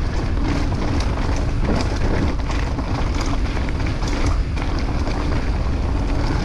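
Mountain bike riding down over a root section: the tyres rumble and the bike rattles and knocks over the roots, with wind rushing over the GoPro's microphone.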